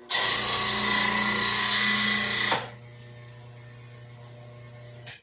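Electric mower-blade grinder running: about two and a half seconds of loud grinding as a mower blade is sharpened, then the motor runs on freely with a steady hum. The sound cuts off abruptly near the end.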